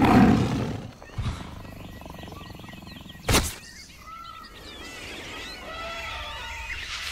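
Low steady rumble of a coach's engine heard from inside the passenger cabin, opened by a loud burst, with a sharp knock about three seconds in and wavering high sounds near the end.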